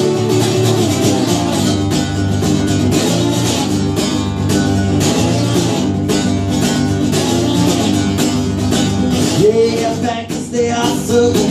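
Solo acoustic guitar strummed in a steady rhythm during an instrumental break of a live song. A short wordless vocal comes in near the end.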